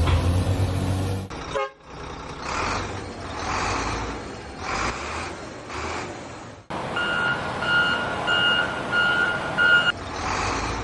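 Truck sound effects: an engine hum that cuts off about a second in, then a rhythmic swelling engine noise, then a reversing alarm beeping about five times evenly near the middle.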